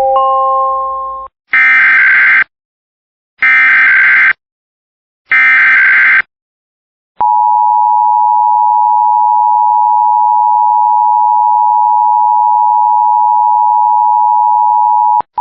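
Emergency Alert System tones: a rising electronic chime ends about a second in, then three short bursts of the warbling SAME digital header, each about a second long, then the two-tone attention signal held steady for about eight seconds, breaking briefly near the end.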